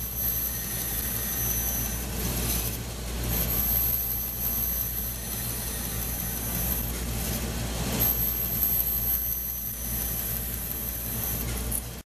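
Band saw running with a steady motor hum, its blade cutting a series of short parallel slots into a piece of plywood, the sound swelling and easing from cut to cut. It cuts off suddenly near the end.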